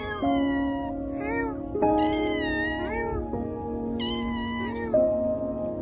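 A black-and-white domestic cat meowing repeatedly, about four high, bending meows, over background music with sustained chords.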